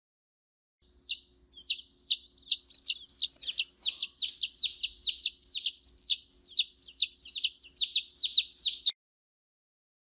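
A baby chick peeping: a steady run of about twenty short, high-pitched, falling peeps, two to three a second, that starts about a second in and cuts off abruptly near the end.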